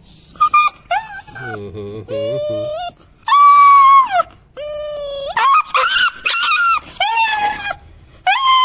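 Rottweiler puppy crying so loudly in a string of about eight drawn-out, high-pitched cries, the loudest about three and a half seconds in. It is crying from fear and pain while held down for an injection.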